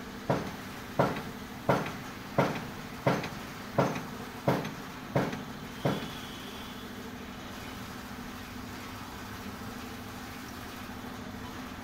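Nine sharp knocks, evenly spaced about two-thirds of a second apart, each with a short ringing tail, stopping about six seconds in; a steady low hum runs underneath.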